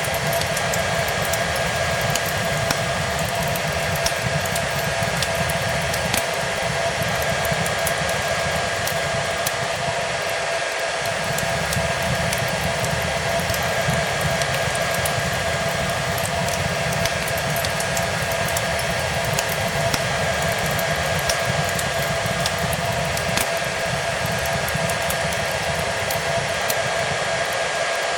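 Hair dryer blowing steadily, a constant rush of air with a steady motor whine, mixed with the scattered small pops and crackles of a burning wood fire.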